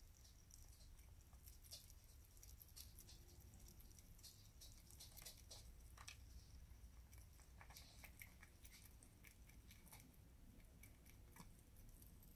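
Sugar glider eating mealworms from a plastic tub: faint, irregular little clicks and crunches of its chewing and of it picking among the worms.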